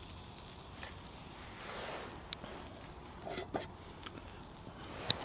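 A few sharp, separate clicks of a utensil against the stainless steel frying pan of a Kelly Kettle cook kit, over faint rustling.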